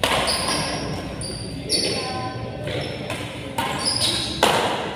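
Badminton rally in a reverberant indoor hall: about five sharp racket strikes on the shuttlecock, roughly one a second, each ringing on in the hall, with high shoe squeaks on the court floor between them.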